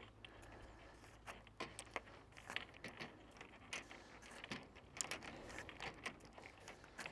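Faint, scattered clicks and rubbing of small plastic end caps being worked off the ends of white plastic well drop pipes by hand.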